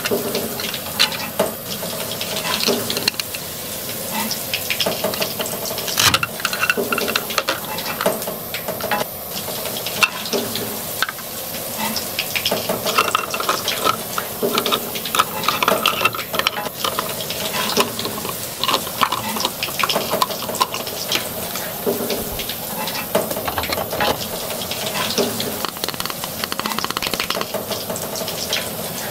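Steady frying sizzle from a toy cooktop, with many small clicks and taps of plastic toy vegetables and a plastic spatula knocking in the toy pan.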